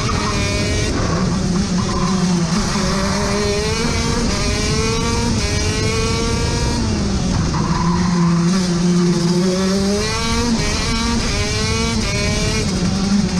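KZ 125 shifter kart's two-stroke single-cylinder engine at racing speed, heard onboard. Its pitch climbs and drops several times as it is shifted through the six-speed gearbox, braked and accelerated through corners.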